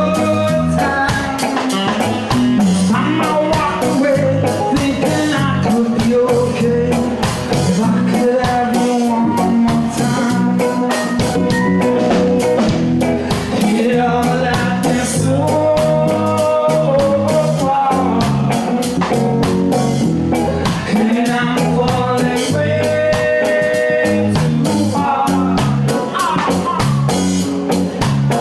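Live band playing a reggae-style rock song: drum kit, bass and guitar with a singing voice carrying the melody.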